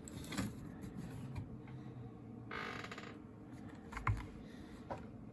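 A mechanical keyboard being handled on a desk: a few scattered clicks, a brief scrape, and a dull knock about four seconds in.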